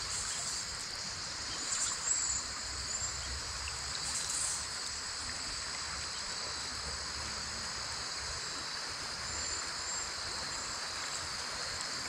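Steady rush of a wide, fast-flowing creek's current over riffles, with a constant high drone of insects and a few short, faint high chirps.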